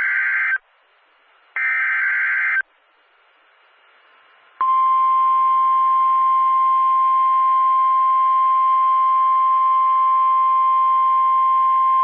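NOAA Weather Radio SAME alert header: the tail of one screeching digital data burst, then another full burst about a second later. After a two-second pause, the steady 1050 Hz warning alarm tone starts and holds at one pitch, the attention signal that comes before a new warning message.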